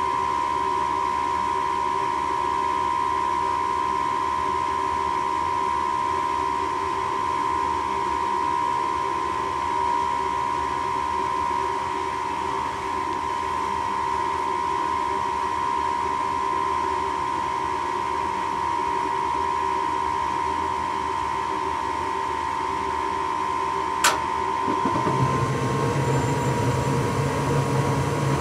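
Gas furnace running with a steady fan hum and a held whine. Near the end there is one sharp click, and a second later a deeper, slightly louder hum starts as the furnace's next stage comes on.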